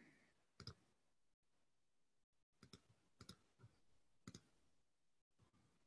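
Near silence with about five faint, scattered clicks of a computer mouse.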